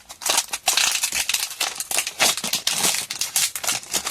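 A Pokémon TCG booster pack's foil wrapper being handled and torn open, crinkling in quick irregular crackles.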